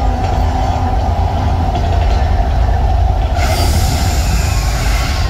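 Mirage volcano eruption effect: a steady deep rumble throughout, and about three and a half seconds in a sudden rushing hiss as the gas-fired flame jets burst up.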